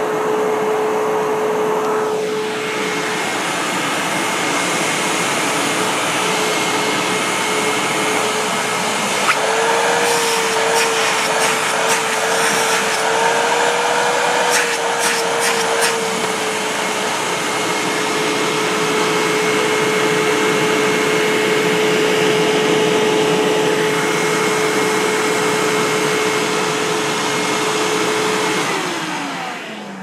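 Hoover WindTunnel upright vacuum cleaner running on a shag carpet, a steady motor whine over the rush of air. Midway the whine wavers slightly with a spell of clicks and rattles. Near the end it is switched off, and the whine glides down as the motor spins down.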